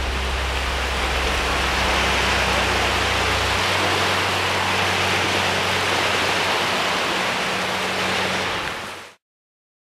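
Small surf breaking and washing up a sandy beach: a steady rushing hiss, with a low held tone underneath that drops away partway through, then fading out to silence near the end.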